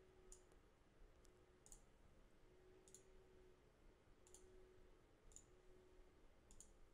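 Faint computer mouse clicks, several single clicks scattered about a second apart over near silence.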